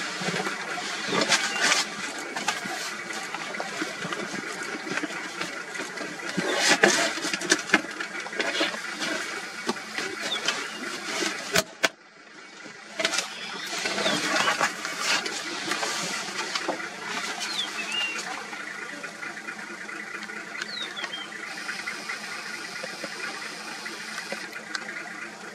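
Lions feeding on a buffalo carcass: irregular wet tearing, chewing and crunching of meat and bone, loudest around seven seconds in.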